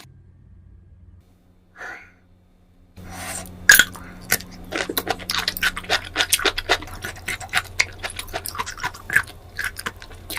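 Close-miked eating of malatang with bamboo shoots: dense, sharp chewing and crunching clicks with slurps, starting about three seconds in after a quiet start.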